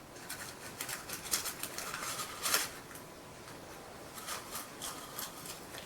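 Faint scattered rustling and light clicks, like something being handled, with a slightly louder rustle about two and a half seconds in.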